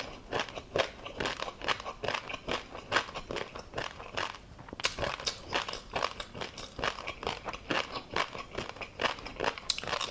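Close-miked chewing of tobiko flying-fish roe, the small eggs popping and crackling in quick, irregular clicks, several a second.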